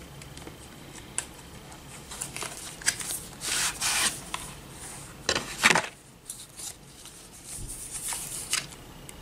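Hands rubbing and scraping at a small makeup palette case and its packaging. There are several short scratchy rasps about three to four seconds in, and the loudest one comes about five and a half seconds in.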